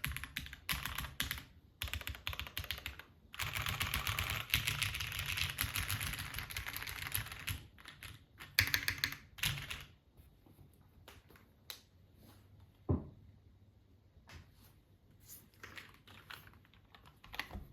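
Axiom Studios Typ65+ mechanical keyboard, top-mounted with a carbon-fibre half plate and broken-in Cherry MX Black linear switches, being typed on. It starts with fast, continuous typing, then thins out after about eight seconds to scattered single keystrokes. One deeper, heavier key strike comes about two-thirds of the way through.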